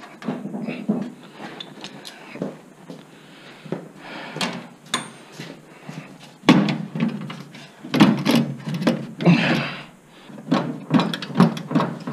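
Irregular metal clanks, knocks and clicks of hand tools on the bolts and sheet-metal fittings of a 1928 Falcon Knight's front fender and side step, sparse at first and coming thick and fast in the second half.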